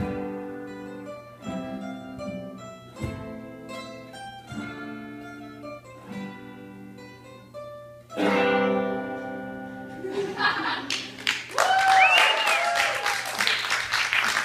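Guitars play the closing chords of a song, one chord about every second and a half, ending on a louder ringing chord about eight seconds in. Then applause and a whooping cheer break out from about ten seconds in.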